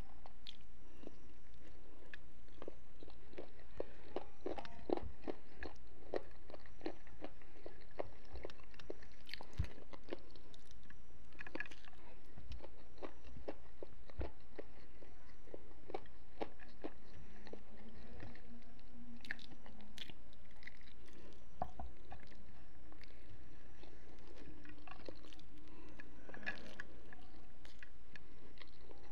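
A person chewing and biting food close to the microphone, with many short crunching clicks, several a second at times, over a low steady hum.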